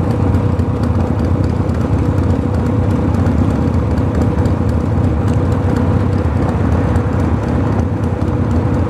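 Loud, steady running of a nearby vehicle's straight-through exhaust, with no muffler, heard from a motorcycle in traffic.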